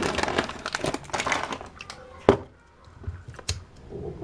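Plastic snack bag of Choclitos corn chips crinkling as a hand rummages inside it and pulls out a chip, with a single sharp click a little after halfway through.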